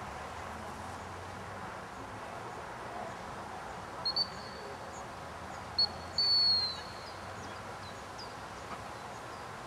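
Gundog whistle: two quick short peeps about four seconds in, then a short peep and a longer blast that drops in pitch as it ends, over steady outdoor ambience with faint bird chirps.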